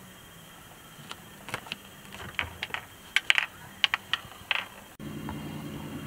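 Light, irregular clicks and taps of small objects being handled, about a dozen over five seconds; from about five seconds in, a steady low hum.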